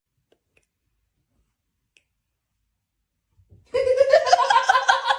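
Dead silence for over three seconds, then, near the end, a person's voice starts up in quick rapid pulses like giggling laughter.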